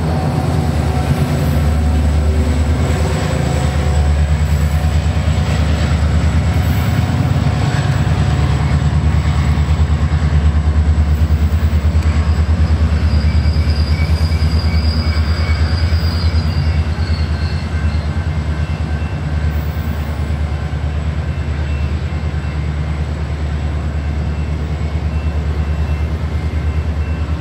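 Diesel push-pull passenger train pulling out past the platform: double-deck coaches rolling by over a steady low engine drone, with a faint high wheel squeal in the middle. The sound eases a little as the train draws away.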